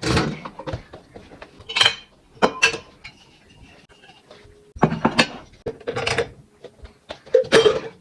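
Dishes and cutlery clinking and clattering as a dishwasher is unloaded, in about six separate bursts with short pauses between.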